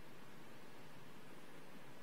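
Faint, steady hiss of background noise with nothing else heard: the room tone of an empty church sanctuary.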